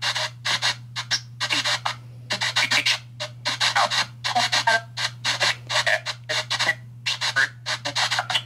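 Spirit box app on a phone sweeping through radio frequencies: a rapid, choppy stream of static and broken snatches of broadcast sound, several short bursts a second, over a steady low hum.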